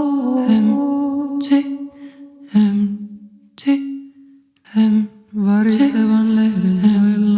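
Unaccompanied voices singing long held notes in two close lines, partly hummed. The singing thins out and breaks off briefly about halfway through, then comes back.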